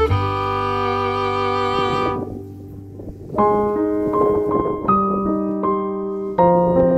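Background music: a held chord fades out about two seconds in, then piano notes and chords resume after a short lull.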